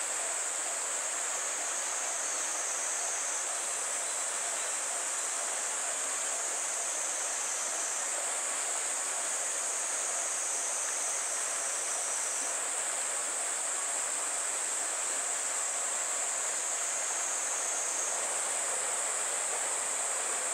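River water rushing steadily, with a steady high-pitched buzz above it.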